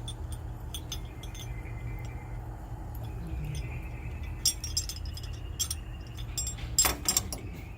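Small metal deadbolt parts and screws clinking and tapping as the lock is fitted back into the door, with a quick run of louder clicks near the end.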